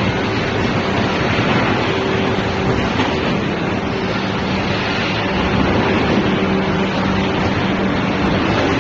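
Steady noise of plywood hot-press machinery: a loud, even hiss with a faint low hum running under it.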